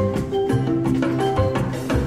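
Upbeat calypso music: a melody of sustained pitched notes over a bass line, with a steady percussive beat.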